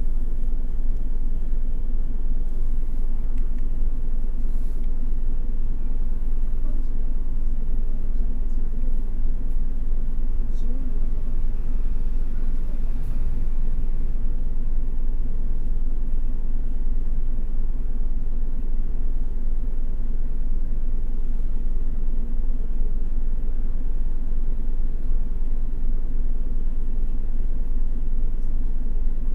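Toei city bus running: a steady low engine and drivetrain rumble with no change in speed.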